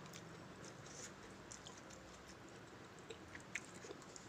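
Faint chewing and mouth sounds of a person eating, with a few small soft clicks scattered through.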